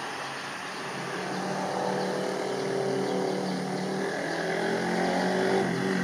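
Turbofan engines of an Embraer 170 airliner on final approach: a steady drone with a few low held tones that drift slowly in pitch.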